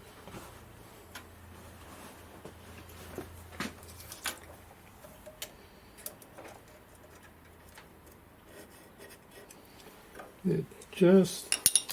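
Scattered light clicks and taps of tools and small metal parts being handled at a workbench. A faint low hum stops about four seconds in. A short voice sounds near the end.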